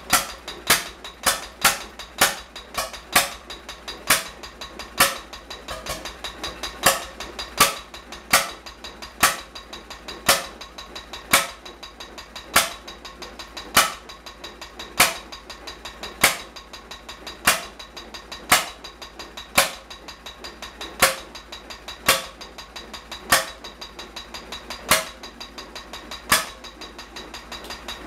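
H V McKay Sunshine 7 hp stationary engine running, firing with sharp bangs with lighter ticks between. The bangs come about twice a second at first and space out to about once a second after some four seconds.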